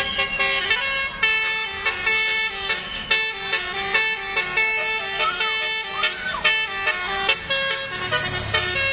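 Indonesian bus 'telolet' horn playing a tune: a set of air horns sounding a quick run of stepped notes, one after another.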